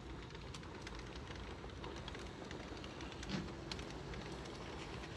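HO scale model freight train running on the layout's track: a faint steady rumble with scattered light clicks.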